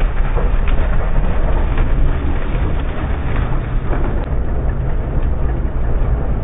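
Farm machinery running steadily and loudly, a deep engine-like rumble with a dense mechanical din over it.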